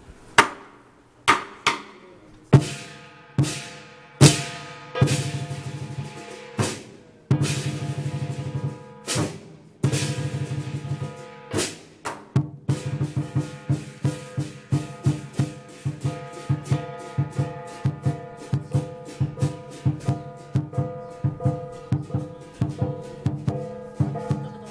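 Chinese lion dance percussion: a big drum with clashing cymbals, at first in slow, widely spaced accents that ring out, then about twelve seconds in settling into a quick, steady beat.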